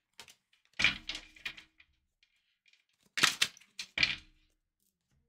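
Oracle cards being dealt onto a table: three short slaps with a papery slide, one about a second in and two close together near three and four seconds.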